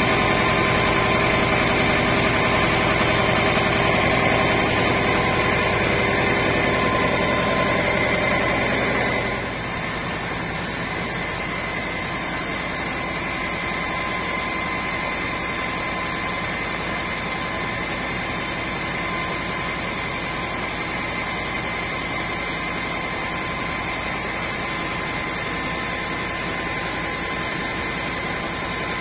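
Heavy engine running steadily, with a thin steady whine over it. About nine seconds in it drops a little in level and runs on at the lower setting.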